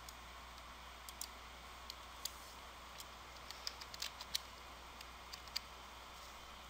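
Faint computer mouse and keyboard clicks: a few scattered clicks, then a quick run of keystrokes about three and a half to four and a half seconds in, and a few more a second later.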